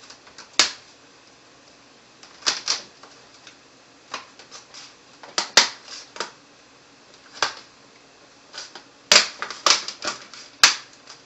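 Plastic snap clips of a laptop's screen bezel clicking loose one after another as the bezel is pried off by hand: sharp separate clicks, single and in quick clusters, busiest near the end.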